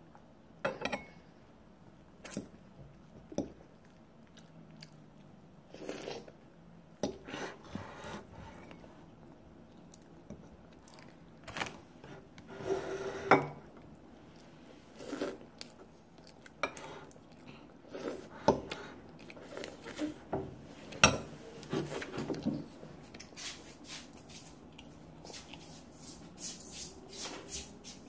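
A child eating soft roll cake close to the microphone: wet mouth and chewing sounds, with irregular clicks and clinks of a metal fork against a ceramic plate.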